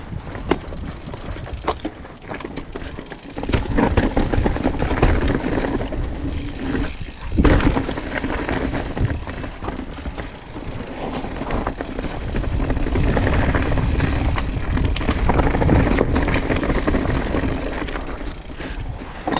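Mountain bike descending a rough rock trail: tyres, chain and suspension rattle and knock over rocks without a break, over a low wind rumble on the helmet microphone.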